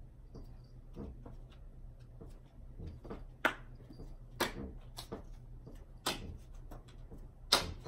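Playing cards being thrown one after another: a string of short, sharp snaps and slaps, about one a second from around three seconds in, the loudest near the end.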